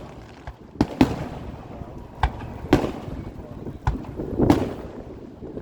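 Aerial fireworks exploding: about six sharp bangs at uneven intervals, each trailing off in an echoing rumble.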